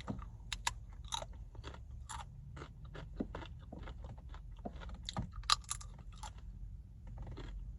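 Tortilla chips being crunched and chewed close to the microphone: irregular crisp crunches throughout.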